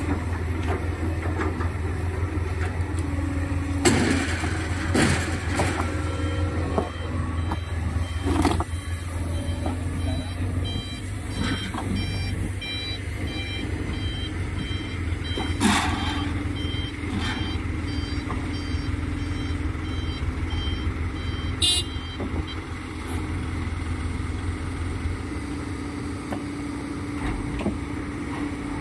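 Diesel truck engine running steadily, with several heavy knocks of rocks landing in the truck's bed. About a third of the way in comes a run of short, even, high-pitched beeps.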